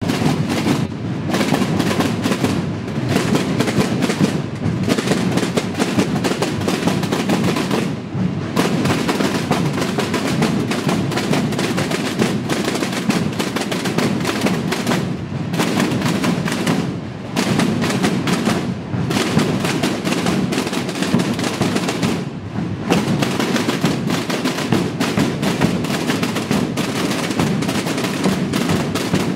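A large marching corps of snare drums and big bass drums beating together in a dense, rapid, continuous tamborada rhythm, with brief dips a few times.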